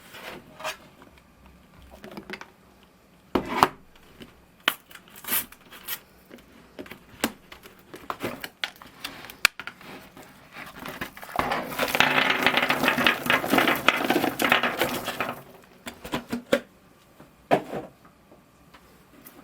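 Crinkling of chocolate wrappers being handled, mixed with light clinks and taps. A denser, louder spell of crinkling lasts a few seconds past the middle.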